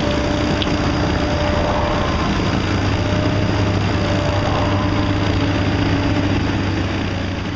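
Engine of heavy construction equipment running steadily, with a low, even hum under a broad mechanical noise.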